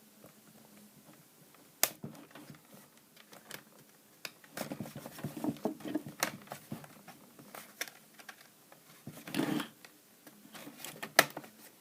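Plastic screen bezel of a laptop being pried off: irregular sharp clicks as the snap-in clips pop loose, with scraping and rustling of the pry tool against the plastic and a loud snap near the end.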